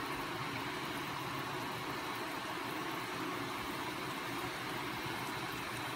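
Steady, even hiss with a faint low hum from a gas stove burner under a pot of tom yum soup simmering.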